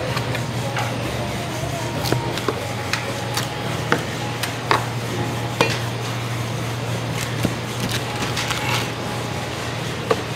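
Irregular knocks and clatter of a knife and salmon pieces being handled on a cutting board, over a steady low hum.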